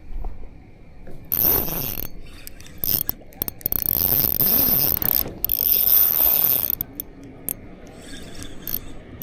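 Spinning fishing reel clicking and whirring in three main bursts, with shorter clicks between and faint ones near the end.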